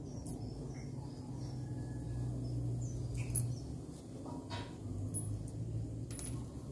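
A few light clicks and knocks from the small metal parts of a motorcycle starter motor being handled, over a low steady hum, with faint high chirps.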